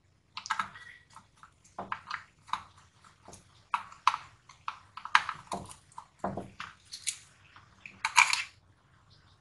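Screwdriver working the terminal screws of an electronic water-pump pressure controller while its plastic housing is handled: a string of irregular small clicks and scrapes.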